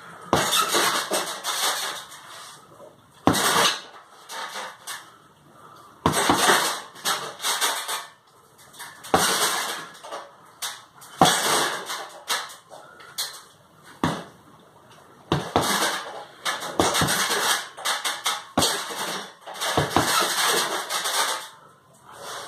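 Punches landing on a hanging heavy bag, in hits a few seconds apart, each followed by a second or so of noise before a short lull.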